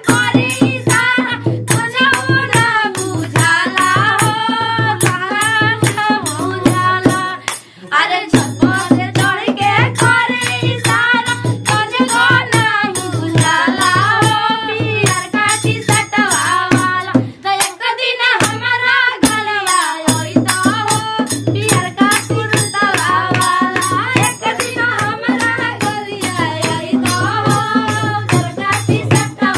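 Women singing a Bhojpuri folk wedding song together (a gaali geet, the teasing song sung at the groom's party), over a fast, steady beat of hand claps and percussion.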